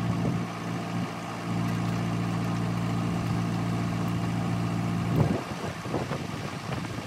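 Tractor backhoe's diesel engine idling steadily. About five seconds in, the steady engine drone drops away, leaving an irregular rougher noise.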